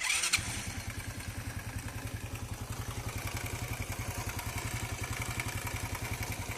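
Corven Energy 110 motorcycle's single-cylinder four-stroke engine starting up and then idling with a steady, rapid beat. Under the idle there is a chain rattle and an extra knocking, which the mechanic takes for the cam chain plus a further knock on one side of the engine.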